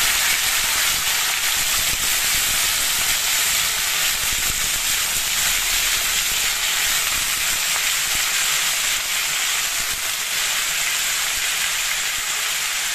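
Raw potato fingers sizzling in hot mustard oil in a kadhai, freshly added to the oil. It is a loud, steady frying hiss that eases off slightly over the seconds.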